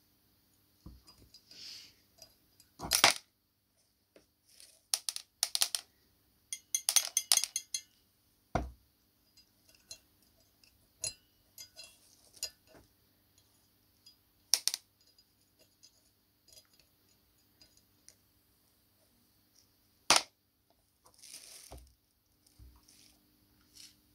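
Small metal parts clinking and knocking against each other and a hard surface as they are handled, with irregular clicks and a few louder knocks, one of them ringing briefly.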